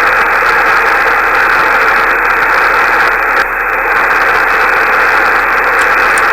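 Loud, steady rushing static from an HF ham radio receiver, held in the narrow audio band of single-sideband reception. The operator takes it for static discharge, like snow static, from clouds passing through the antenna.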